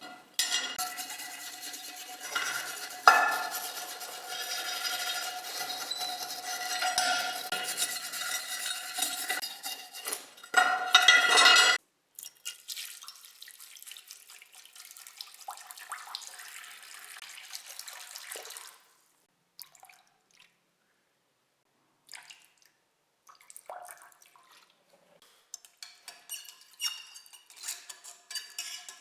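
Water running and splashing for about the first twelve seconds, loudest near the end of that stretch, then quieter handling with scattered short clicks and taps.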